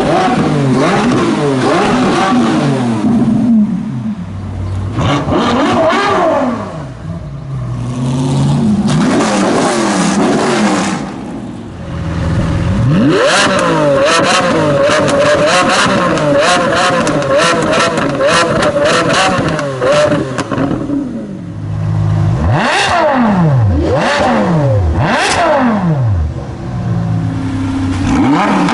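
Several supercar engines revving hard one after another, the engine note rising and falling with each blip of the throttle. Through the middle there is a long held rev with a rapid run of exhaust pops and crackles, and near the end come several sharp rising-and-falling revs.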